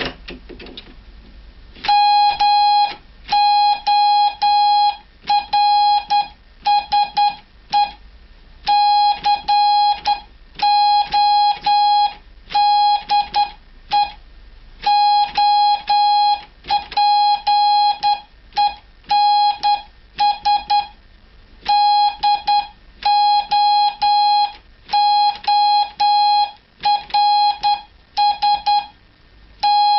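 Morse code sent as a steady single-pitch beep, keyed on and off in dots and dashes with short gaps between letters and words, starting about two seconds in.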